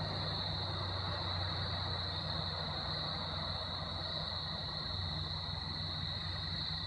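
Evening insect chorus, a steady high-pitched drone that never lets up, over a low steady hum.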